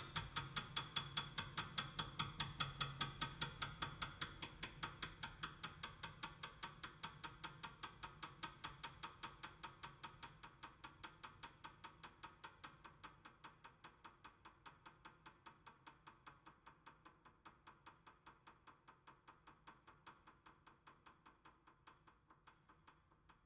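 Music fading out: a steady rhythmic ticking, about four light clicks a second over faint sustained tones, dying slowly away.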